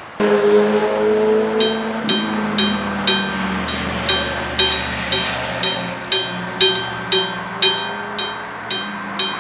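Old electric-bell level-crossing warning bell ringing: evenly spaced metallic strikes about twice a second, each ringing on briefly. A sustained low tone comes in suddenly at the start and fades out within the first few seconds.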